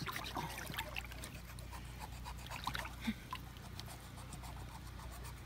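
Knife slitting open a salmon's belly: short wet squeaks and small clicks of the blade in the flesh during the first three seconds, over a steady low hum.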